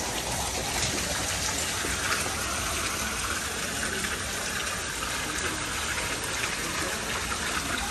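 Small indoor fountain's single vertical water jet falling back into its pool, a steady splashing hiss.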